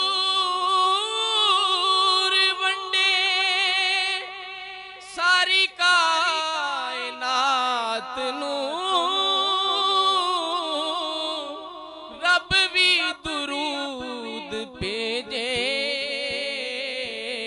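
A man's solo voice singing a Punjabi naat, drawing the words out into long held notes with a strong wavering vibrato and turning ornaments, with short breaks for breath about five seconds in and again near twelve to fifteen seconds.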